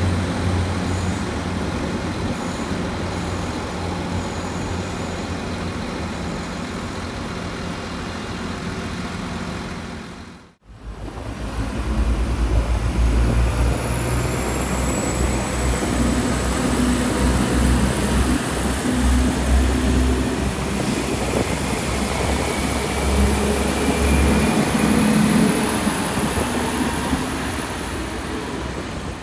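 Northern Ireland Railways Class 3000 diesel multiple unit running at the platform with a steady low engine rumble. After a sudden cut about ten seconds in, a Class 4000 diesel multiple unit runs past with a pulsing engine rumble and a high whine that rises about a third of the way through and holds almost to the end.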